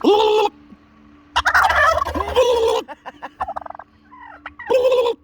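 Wild turkeys gobbling loudly in three bouts: one right at the start, a longer one in the middle where calls overlap from more than one bird, and one near the end, with short softer calls in between.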